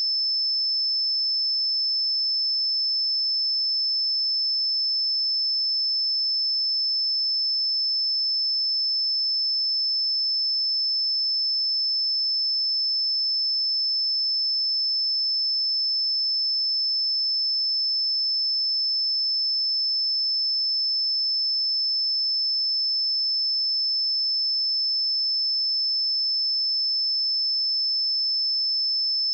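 A single steady 5263 Hz sine-wave test tone, one pure high-pitched note held at a constant level.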